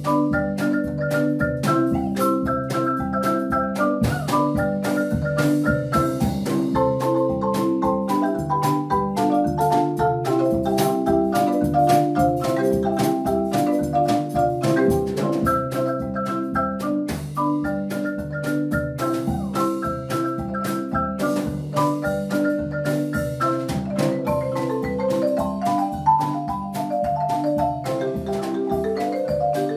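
A large wooden marimba played by several players at once, in a quick, evenly pulsed rhythm: a repeated low bass line, chords in the middle, and a fast high melody of short repeated notes.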